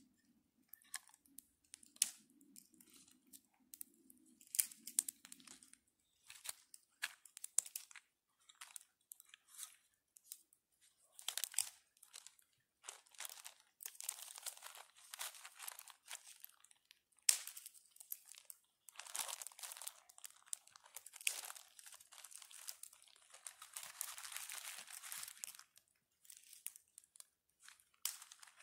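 Close rustling, crinkling and tearing of paper and plastic packets being handled, in irregular bursts of short crackles that thicken into longer crinkling in the second half.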